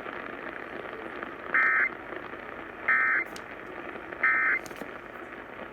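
Three short bursts of Emergency Alert System data tones, evenly spaced a little over a second apart, over a steady AM radio static hiss. This is the end-of-message code that closes the tornado warning.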